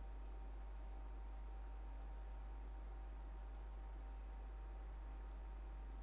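A few faint computer mouse clicks: two quick double clicks, then two single clicks. Under them runs a steady low electrical hum.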